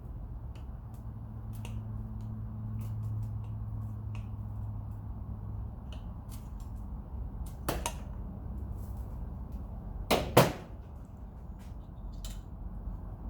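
Scattered clicks and knocks of tools and metal parts being handled, with two sharp knocks about ten seconds in, over a low steady hum that stops about halfway through.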